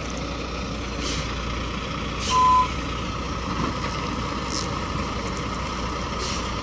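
Tri-axle dump truck's diesel engine running steadily as it backs up, with one short reversing-alarm beep about two and a half seconds in and a few brief hisses.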